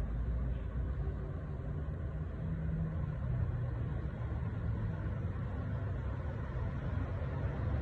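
A steady low rumble with a faint low hum running through it.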